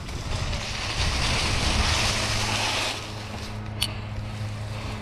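Mountain bike tyres rolling over dry leaves and grass, a steady rushing hiss mixed with wind on the microphone, which eases off about three seconds in.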